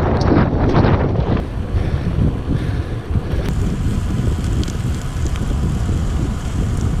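Wind buffeting a GoPro's microphone on a moving road bike: a loud, rough rumble. It is strongest for about the first second and a half, then settles into a steadier, lower rush.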